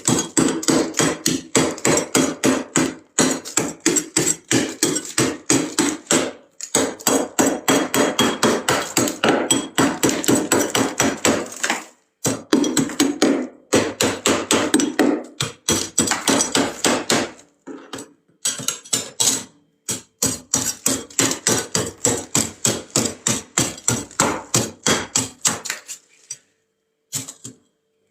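Frost being scraped off the inside of a freezer in quick, repeated strokes, about three to four a second, with a few short pauses.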